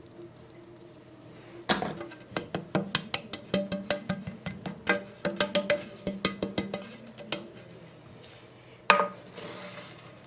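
A metal utensil clattering rapidly against a mixing bowl, several quick knocks a second, as batter is mixed; it stops after a few seconds, and a single sharp ringing tap on the bowl follows near the end.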